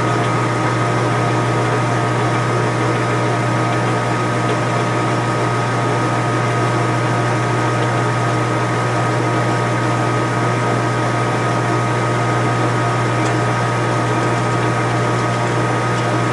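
Lathe motor running steadily with a constant hum and whine, no change in load.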